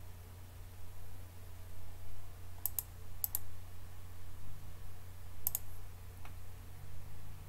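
Computer mouse clicking a few times, three quick double clicks and one fainter single click, over a steady low hum.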